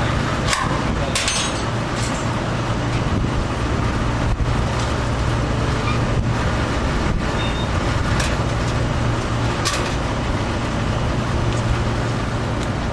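An engine running steadily with a low hum, with a few short clicks and knocks on top.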